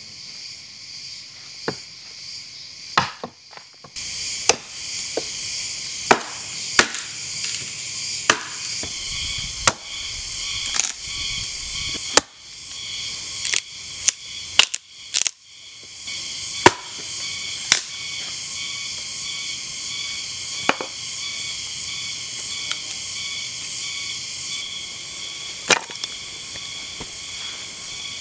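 Small hatchet chopping and splitting dry wood: about twenty sharp, irregular strikes, some in quick pairs, over a steady high-pitched drone.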